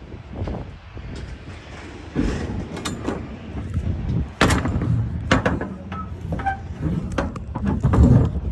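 Metal clanks and knocks from a semi-trailer's rear swing doors and lock-rod handles being handled, over a steady low rumble. The knocks come irregularly, with the loudest about halfway through and again near the end.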